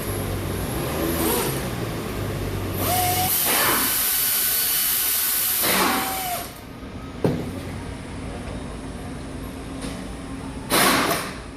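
Handheld power tool, such as an electric ratchet or drill, used on fasteners while a valve cover comes off an engine. Its motor spins up, runs for about three seconds and winds down. There are shorter runs before that and near the end, and a single sharp knock a little after the long run.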